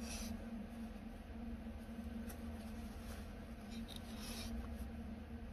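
Faint rustling and rubbing of a paper towel being handled and worked inside a glass bong, over a steady low hum.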